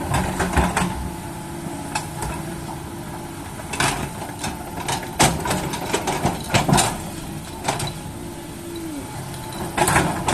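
Excavator's diesel engine running steadily, with irregular sharp knocks and clanks, bunched in a few clusters.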